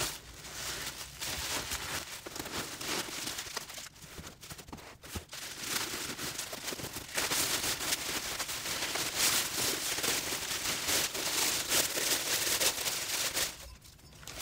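White tissue paper and honeycomb kraft paper wrapping being pulled out and unwrapped by hand, rustling and crinkling. The crinkling gets busier and louder about halfway through.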